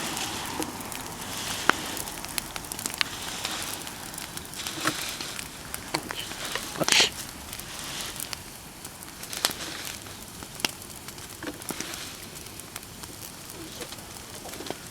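Bonfire of persimmon wood burning, crackling steadily with frequent sharp pops; the loudest pop comes about seven seconds in.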